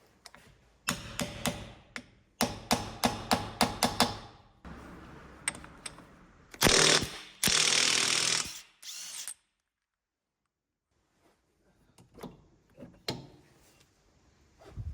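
Work on a car's wheel with tools: runs of rapid rattling strokes, then two longer bursts of a cordless impact wrench hammering, and a few sharp metal clicks near the end.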